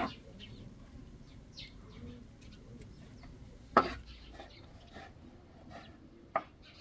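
Kitchen knife striking a wooden cutting board while slicing tomatoes: three sharp knocks a few seconds apart. Birds chirp faintly in the background.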